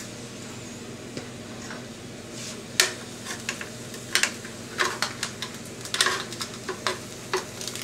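Irregular metallic clinks and taps of a hot roasting tin being handled and tipped over a grill pan as rendered pork fat is drained off, starting about three seconds in, over a steady low hum.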